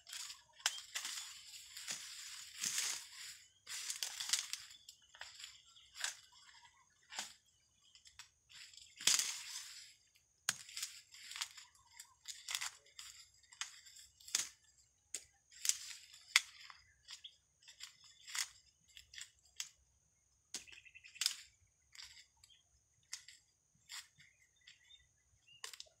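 Dry corn husks and leaves crackling and tearing as ears of dried corn are picked and husked by hand: irregular crunches and rustles, with longer tearing stretches near the start and about nine seconds in.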